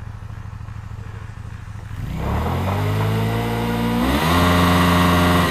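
Motorcycle engine idling, then revved up about two seconds in, climbing again near four seconds and held at high revs before dropping off at the end.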